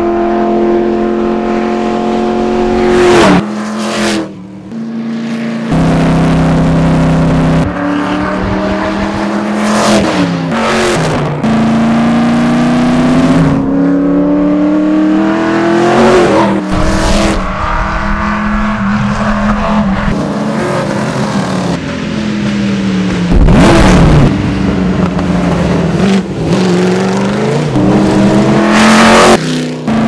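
1953 Gordini Type 24S racing car's straight-eight engine driven hard: the note climbs again and again through the revs and drops sharply at each gear change. About two-thirds of the way through, the car passes by and its pitch falls.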